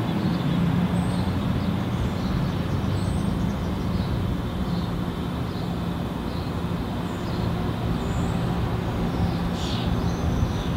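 Steady low mechanical hum of engines or machinery in an urban alley, with faint short high chirps, likely small birds, now and then.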